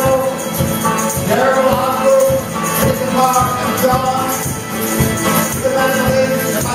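Live acoustic folk music: a twelve-string acoustic guitar strummed in a steady rhythm while a woman sings long held notes.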